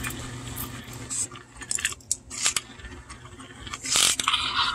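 Pull string of a vintage talking G.I. Joe's voice box being drawn out of the mechanism: faint scratching with a few small clicks, louder for a moment near the end.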